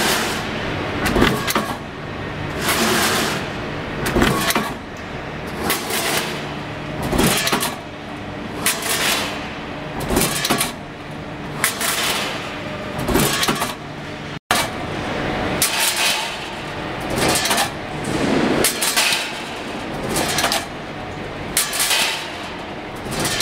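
Automatic coil-fed guillotine shear cycling, cutting steel strip into sheets: a sharp cutting stroke repeats about every one and a half seconds over the steady hum of the line's motors.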